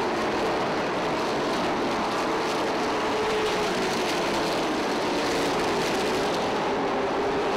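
A pack of pavement late model stock cars racing at speed, their V8 engines blending into one steady, continuous engine noise with a faint tone that drifts gently up and down as the cars pass.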